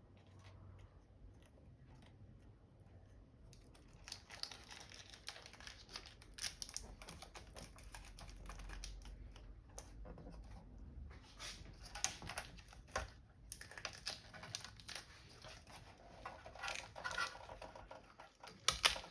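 Irregular clicks, taps and rustling of parts being handled and fitted into an opened computer monitor's casing, busier from about four seconds in.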